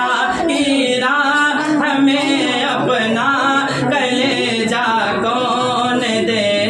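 A man singing a naat, a devotional poem in praise of the Prophet, unaccompanied, in long held, wavering notes.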